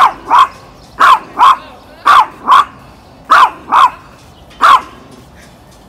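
Pomeranian barking excitedly in quick pairs of sharp, high yaps, about one pair a second, nine barks in all with the last one single.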